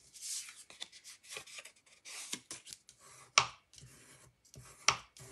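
Bone folder rubbed along the folds of cardstock to crease them: a series of short, dry paper-scraping strokes, with sharp taps about halfway through and near the end.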